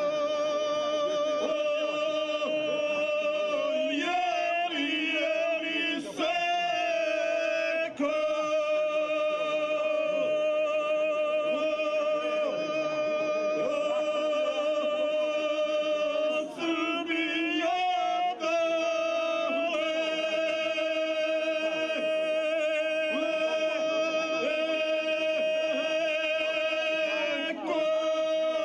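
Two men singing unaccompanied in the traditional Dinaric "izvika" style, holding long, loud, wavering notes together into one microphone. The held notes shift pitch with ornamented turns and are broken only by a few brief breaths.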